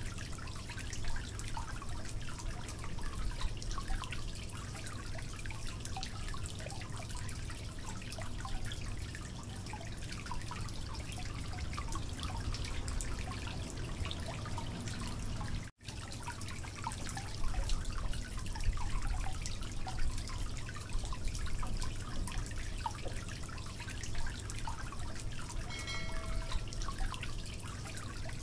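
Steady low hum with faint, scattered small clicks and ticks from handling boiled sweet potatoes and a knife on a wooden board. A short electronic chime sounds near the end.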